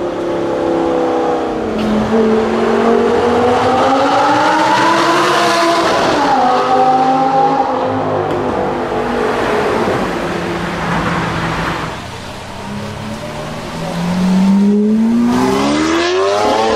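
Supercar engines revving and accelerating hard, their pitch rising and falling: first an Audi R8, then near the end a Lamborghini Aventador's V12 revving up in a long rising sweep.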